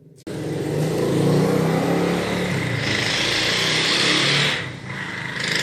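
A motor vehicle engine running loudly, starting suddenly a moment in and dipping briefly near the end.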